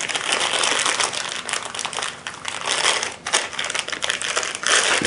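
Packaging crinkling and crackling continuously as it is handled and pulled open to free the product.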